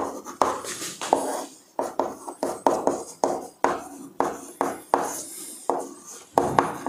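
Chalk writing on a chalkboard: an irregular series of sharp taps and short scratchy strokes, about three a second, as handwritten words are chalked.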